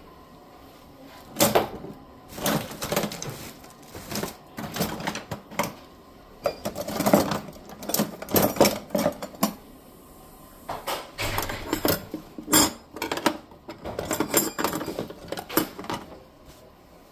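Kitchen utensils, mostly stainless steel, clattering and clinking against each other as a hand rummages through a box of them, in irregular bursts of knocks with a short metallic ring.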